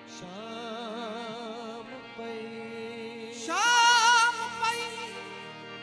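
Qawwali singing over a sustained harmonium note: a male voice holds long notes with a wide vibrato. About three and a half seconds in it swoops up to a loud, high held note, the loudest moment.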